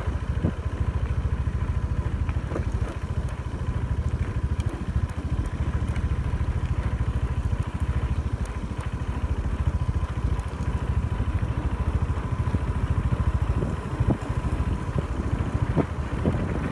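Scooter engine running steadily while riding, under a dense low rumble of wind buffeting the microphone, with a thin steady whine.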